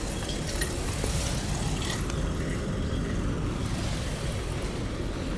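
Steady low background rumble, like distant traffic, with a few faint clicks and knocks in the first two seconds.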